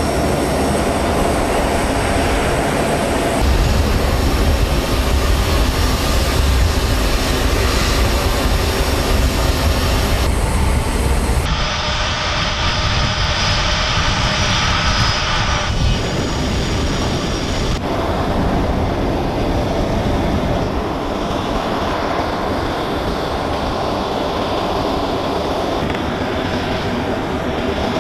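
Steady running of a C-17 Globemaster III's four turbofan jet engines. The noise changes character abruptly a few times, most clearly about 11 to 12 seconds in and again near 16 and 18 seconds.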